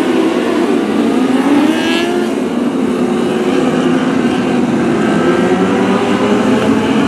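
Several wingless sprint cars racing on a dirt oval, their engines running hard together. Overlapping engine notes rise and fall as the cars accelerate and lift through the laps.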